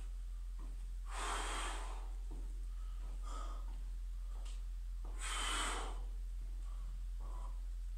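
Two forceful breaths, each under a second and about four seconds apart, over a steady low hum.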